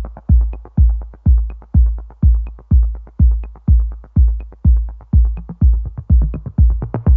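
Background music with a steady deep electronic beat, a kick drum about twice a second with quicker ticking in between.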